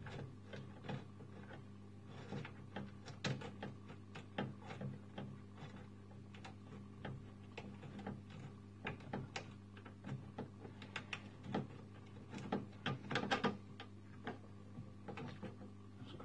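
Irregular small clicks, taps and rattles of hands working at the end of a glass laser tube inside a laser cutter, fiddling with its wire and hose fittings, over a steady low electrical hum.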